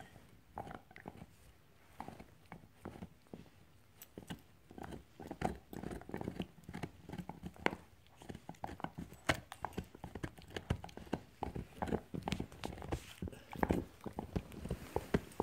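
Yellow Labrador puppy gnawing on an antler chew: irregular hard clicks and knocks of teeth on the antler, sparse at first and coming thick and fast from about four seconds in.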